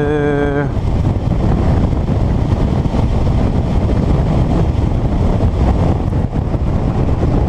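Wind rushing over a helmet-mounted action camera's microphone on a moving motorcycle: a steady low rumble of wind buffeting and road noise.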